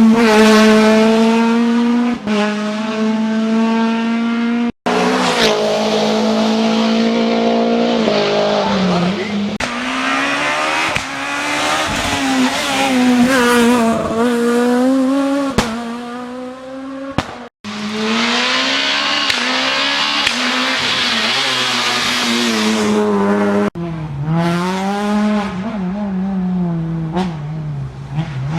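Rally car engines at full throttle, revving up and dropping back through gear changes as the cars drive a special stage. The sound breaks off sharply twice, about five and about seventeen seconds in, as one car gives way to the next.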